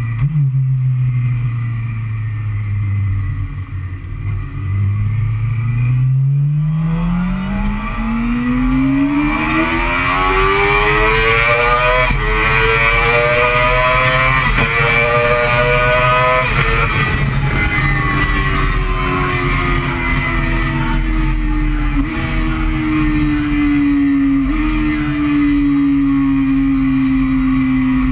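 Yamaha YZF-R6 inline-four engine heard from a GoPro mounted on the fuel tank: it idles, then revs up through the gears with quick shift breaks about twelve, fifteen and seventeen seconds in, and the pitch falls away and slowly drops for the rest, with a rising rush of wind noise once it gets going.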